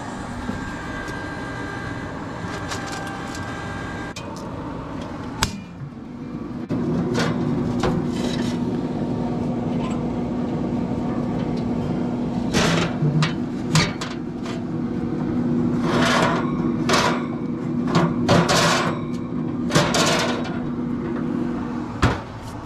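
Electric pellet smoker switched on: its fan starts about six seconds in and runs on with a steady hum. Several knocks and clatters from handling the smoker come over it, most of them in the second half.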